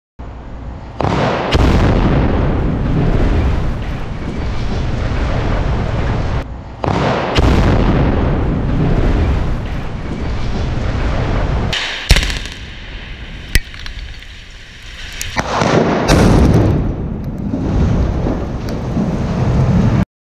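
Explosive demolition of a coal-fired power station's steel electrostatic precipitator units: charges going off in sharp cracks, each followed by a long, low rumble and crashing as the structures come down. The blast-and-rumble comes several times, about a second in, about seven seconds in, around twelve seconds and again around sixteen seconds.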